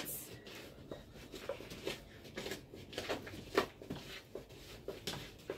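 A wooden stick scraping and rubbing around the inside of a dry, hollow gourd in short irregular strokes, about two a second. The strokes work a black charcoal lining into the gourd to prepare it for holding milk.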